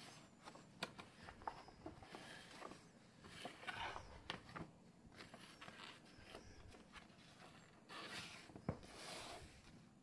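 Stiff paper and a book being handled on a wooden table by a gloved hand: soft rustles and small taps, with longer sliding swishes about four seconds in and again near the end.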